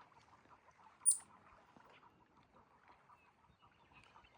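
A single brief, high-pitched chirp or squeak about a second in, over a faint background.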